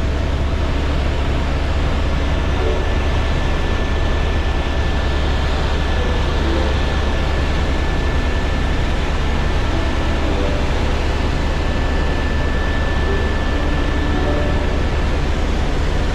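Small aircraft running steadily: a loud, constant engine drone with a deep hum underneath and a thin, steady whine above.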